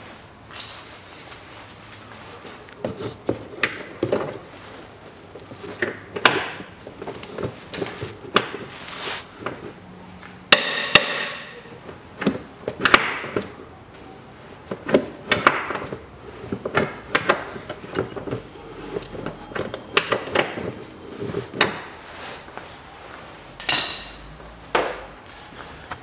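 Hand tools working bolts under a car: a 22 mm socket and wrench turning, with irregular metallic clicks, knocks and clanks, and one loud ringing clank of metal on metal about eleven seconds in.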